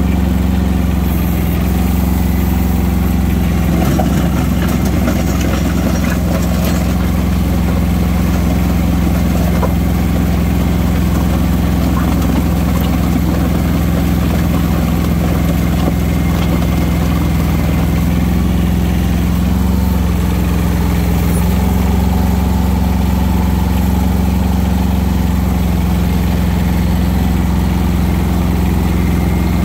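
Kubota compact tractor's diesel engine running steadily, heard up close from the operator's seat.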